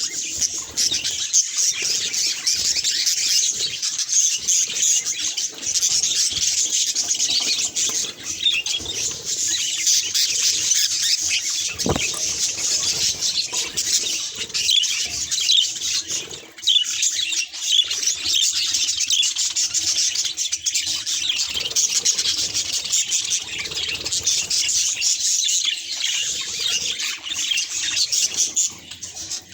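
Budgerigars chattering and warbling without a break, a dense run of quick chirps and squawks, with a single sharp click about halfway through.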